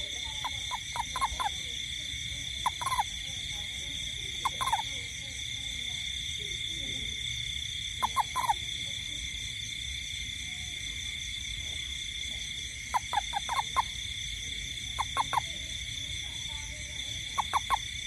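A toad calling in short bursts of three to five quick notes, about seven times at irregular gaps, over a steady high-pitched drone of night insects.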